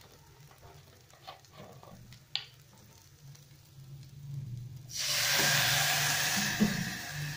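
A few light clicks of chopsticks stirring in a metal pot, then about five seconds in a sudden loud sizzle of food frying in hot oil, which keeps going.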